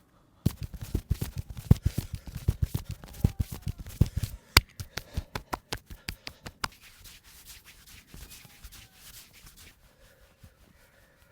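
Massage hands striking the body in quick succession, a fast run of dull slapping thuds, several a second, for about four seconds. Lighter, sharper taps follow, then from about seven seconds in a faint rubbing and scratching of hands on skin and hair.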